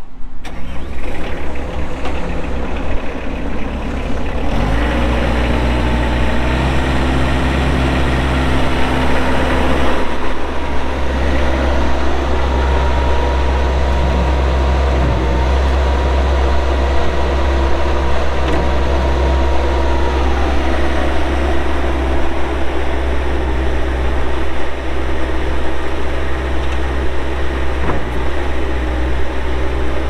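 Bobcat S185 skid steer's turbocharged Kubota diesel engine starting up, settling into a steady low drone about four seconds in and running on as the hydraulics raise the lift arms and bucket.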